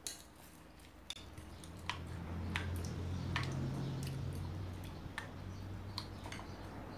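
Plastic spoon stirring thick slime and water beads in a glass bowl: irregular sharp clicks of the spoon and beads against the glass, over a low hum that swells through the middle.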